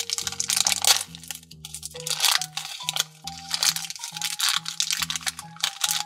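Thin clear plastic bag crinkling and rustling as it is worked open by hand around a small toy figure, over background music.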